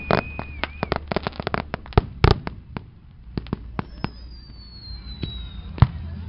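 Aerial fireworks bursting: a rapid series of sharp cracks and pops in the first two seconds, thinning to scattered bangs. A thin whistle sounds near the start, and a longer whistle slowly falls in pitch around the middle.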